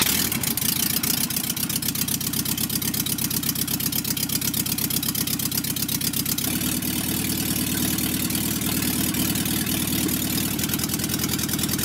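A 1977 VW Westfalia bus's air-cooled flat-four engine, just started, idling steadily with a fast, even exhaust beat.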